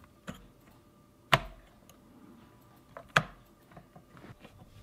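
Sharp plastic clicks and knocks as the odometer unit is pushed back into the plastic housing of a Volvo 850 instrument cluster. Two louder clicks come about two seconds apart, with fainter taps and ticks in between.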